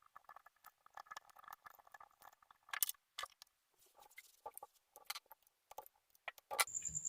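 Faint, scattered small clicks and scratches of hands handling a ceiling fan capacitor and its wire leads. Near the end a sharper click, then a high, fast-pulsing chirp begins.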